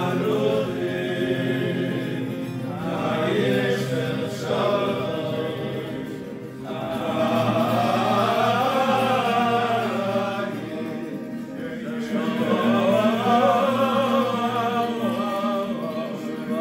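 Men singing a slow Jewish melody in long, rising and falling phrases over a steady low sustained tone.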